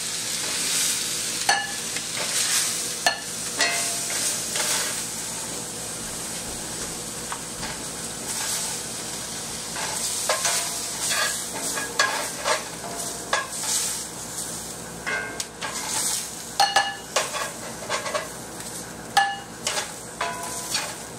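New York strip steak sizzling in a hot pan: a steady hiss of frying fat with frequent sharp pops and crackles, which come more often in the second half.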